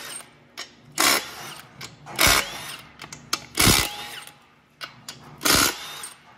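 Cordless power tool with a socket spinning out the bell housing bolts on an aluminium transmission case, in four short bursts a second or so apart.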